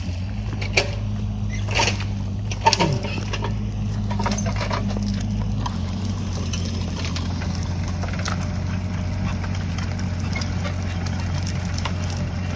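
Mini excavator engine running steadily, with three sharp knocks in the first three seconds.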